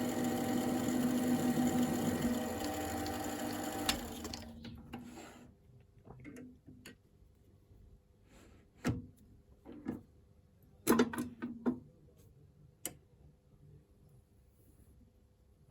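A small electric power tool's motor runs steadily, then is switched off about four seconds in and winds down. It is followed by a dozen or so scattered clicks and knocks of metal being handled.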